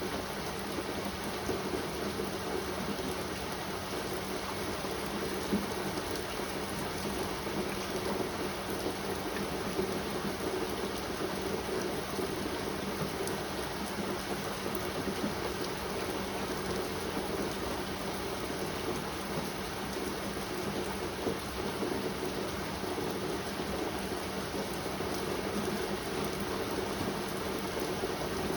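Steady rain falling, an even hiss with now and then a single louder drop.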